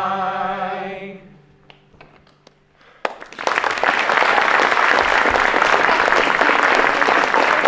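A group of singers holds the song's last note, which fades out about a second in. After a short lull, audience applause starts about three seconds in and continues steadily.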